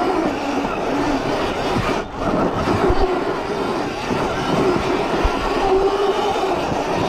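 Dirt bike engine running, its pitch wavering slightly, with a brief drop in level about two seconds in.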